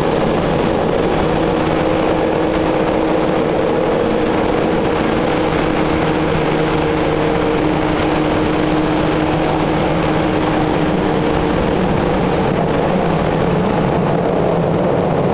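Running noise of a Tokyu 8500 series electric train car travelling through a subway tunnel, heard from inside the car: a loud, steady rumble. Two steady tones sit on top of it; one drops out about halfway through and the other about three quarters of the way through.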